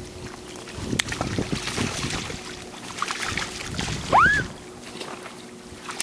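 A gull gives one loud call that sweeps up and then down, about four seconds in, over scattered splashing and wing flaps of gulls landing and taking off on the water. A faint steady low hum runs underneath.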